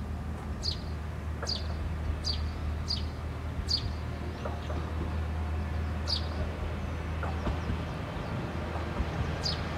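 Diesel railcar engine running with a steady low drone as the JR West KiHa 40-series car approaches slowly. A bird's short, falling chirps repeat over it, about one a second at first, then only now and then.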